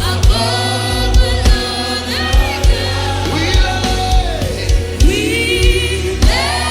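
Choir singing gospel praise and worship with a band, over a steady bass line and a regular drum beat.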